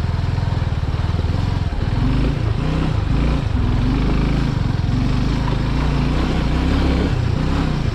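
Suzuki Gixxer 250's single-cylinder engine running as the motorcycle is ridden slowly over a rough, broken off-road track, its note rising and falling with the throttle.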